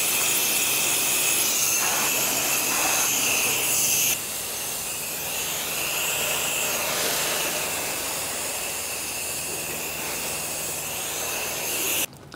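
Pressure washer wand spraying water in a steady hiss. The level drops a step about four seconds in, and the sound cuts off suddenly near the end.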